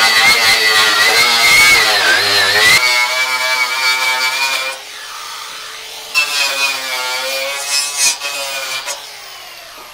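Angle grinder with a wire cup brush scouring old tar and caulking off a metal roof seam: a high, steady motor whine over a rasping scrub. It eases off briefly about halfway, picks up again, and winds down near the end.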